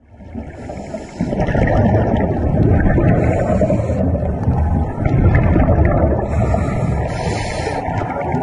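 Muffled underwater rumble and water noise picked up through a camera's waterproof housing, with a higher hiss that swells and fades every few seconds.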